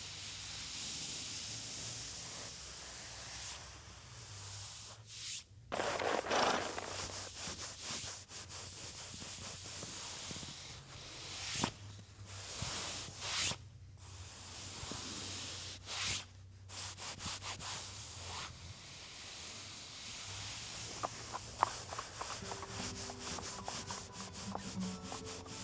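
Hands rubbing and sweeping dry white powder across a flat surface: a dry hissing rub that comes in strokes with short breaks. Faint musical tones come in near the end.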